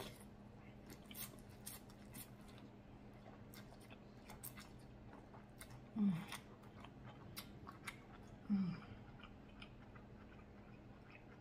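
A person chewing a mouthful of pho rice noodles: soft wet chewing with many small mouth and lip clicks, and two short, louder throat sounds falling in pitch about six and eight and a half seconds in.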